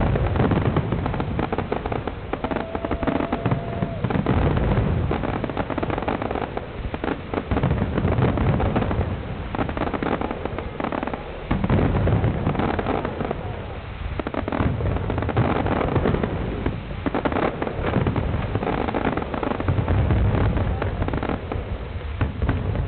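Fireworks display: a dense, continuous barrage of aerial shells bursting with deep booms and crackling, one burst on top of the next.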